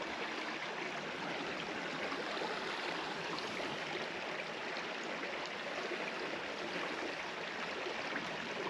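Shallow mountain creek running, a steady, even wash of water sound.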